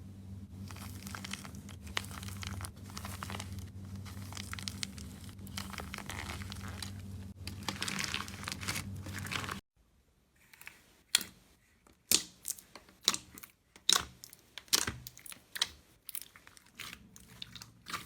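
Slime being worked by hand: a continuous soft crinkling, squishing sound over a low hum for about ten seconds. After a sudden break comes a run of sharp, irregular crackles and clicks.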